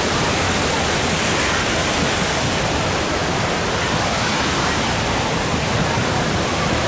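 Water rushing down the waterfalls and rapids of a theme-park river rapids ride, a steady, even rush of falling water.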